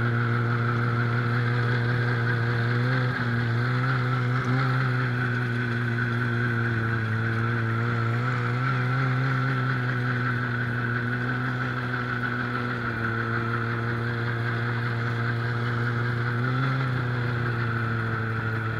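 Snowmobile engine heard from on board, running at a steady speed with a small rise in engine speed about three seconds in and again near the end.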